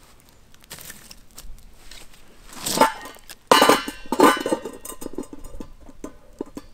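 Metal cookware clanking and scraping over the campfire: a few loud ringing metal knocks between about three and four and a half seconds in, with quieter handling noise around them.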